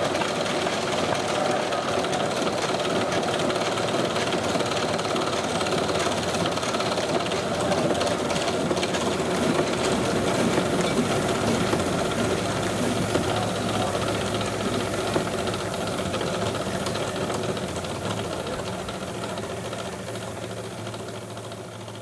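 Burrell steam traction engine running under steam with a steady, rapid mechanical beat as it drives a sawmill through a flat belt. The sound fades away over the last several seconds.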